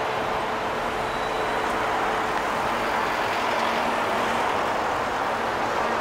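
Steady road traffic: cars, a taxi and city buses passing close by, with an even rushing noise and no break.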